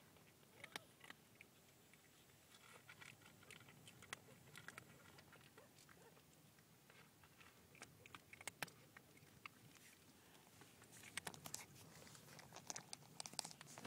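Kittens chewing dry cat food: faint, irregular crunching clicks, which come thicker and louder near the end.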